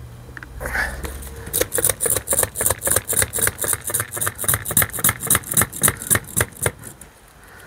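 Hand-pump vacuum suction cup being pumped against car door glass to seal it: a quick run of about twenty short strokes, roughly four a second, starting about a second and a half in.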